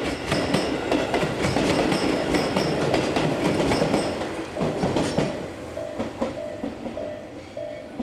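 A Tobu Kameido Line commuter train passes over a level crossing, its wheels clattering over the rail joints in a rapid run of clicks. It is loudest in the first half and fades away about five seconds in. The crossing's warning bell rings in a steady repeating pattern behind it and is heard clearly once the train has gone.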